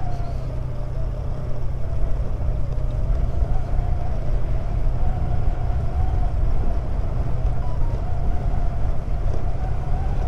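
Honda Click 125 scooter's single-cylinder engine running steadily with a slightly wavering hum while riding downhill, with heavy wind rush on the microphone.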